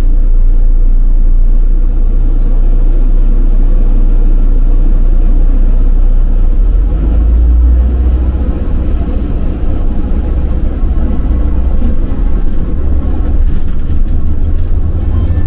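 City bus driving along a street, heard from inside the cabin: a steady low engine and road rumble.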